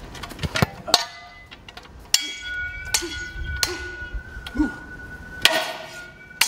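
Swords clashing: several sharp metallic clangs that ring on after each strike, over music.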